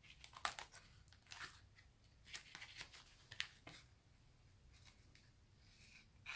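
Soft rustling and crinkling of paper as a small handmade paper booklet is handled and its pages turned, in several short rustles over the first four seconds.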